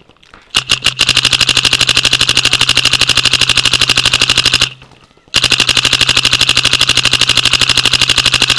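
Paintball marker firing in long rapid strings close to the microphone: a few separate shots, then a fast, even stream of shots, a brief break about five seconds in, and another stream. A steady low hum runs under the shots while it fires.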